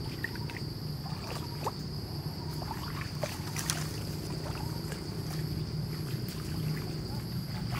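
Insects droning steadily at one high pitch, with a faster pulsing chirp above it, over a low steady rumble and scattered small clicks.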